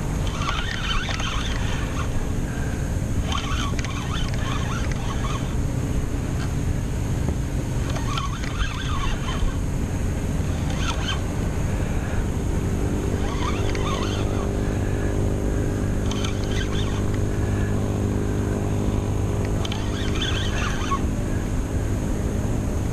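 Steady low rumble of wind and water on the kayak-mounted camera, with a boat engine's hum coming in about halfway through. Short bursts of higher sound recur every two to three seconds.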